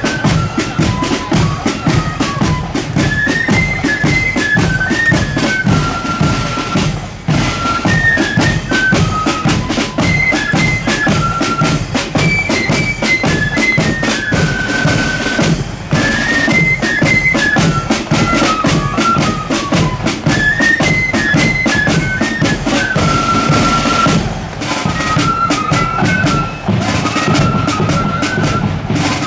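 Marching band playing a tune: a high melody line over a steady, driving drum beat, with brief breaks between phrases.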